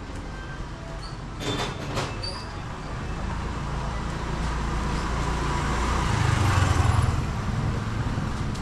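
Street ambience with a motor vehicle's engine growing louder to a peak about seven seconds in, then easing off, and a couple of sharp clacks near two seconds in.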